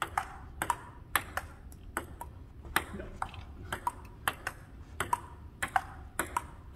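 Table tennis rally: the ping-pong ball ticking back and forth, bouncing on the table and struck by the paddles in a steady run of sharp clicks, about three a second.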